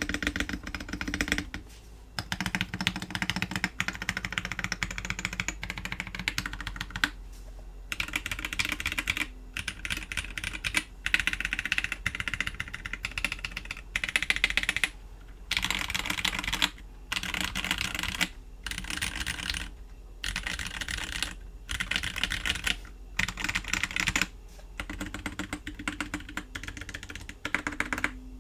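Typing on a Novelkeys NK87 EE mechanical keyboard with lubed SP Star Dark Magic Girl tactile switches on 50g springs, a PC plate, silicone dampening and DROP Artifact Bloom keycaps. The keystrokes come in quick runs of a second or two with short pauses between them.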